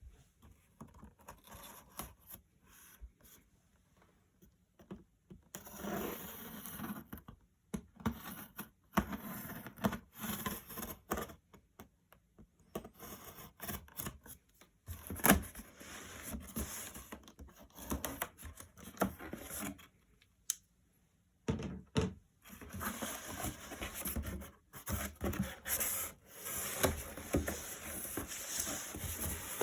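Irregular handling noises at close range: scraping, rubbing and dull thunks, with a couple of short pauses.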